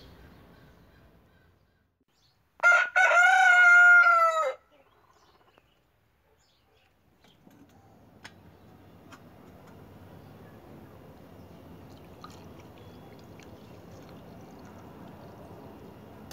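A rooster crows once, about two and a half seconds in: a brief opening note, then a drawn-out call of about a second and a half that sags in pitch at the end. Later a faint steady hiss of outdoor ambience follows, with a few light clicks.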